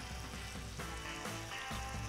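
Background music with a pulsing bass line; beneath it, chicken stock poured from a jug into a hot wok of chicken sizzles faintly.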